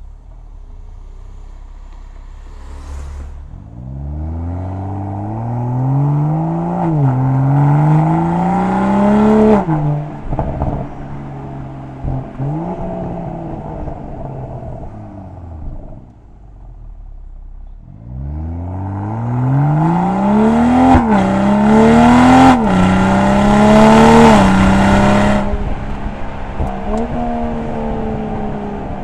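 BMW M340i's 3.0-litre turbocharged straight-six running through an M Performance Exhaust, heard close to the tailpipes. It idles, then pulls hard twice, its pitch climbing and dropping sharply at each upshift. On lift-off each pull ends in a falling note with a burst of exhaust crackles and pops.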